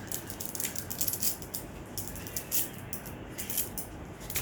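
Small fidget magnets clicking and clattering against each other in the hands, a quick, irregular run of sharp clicks.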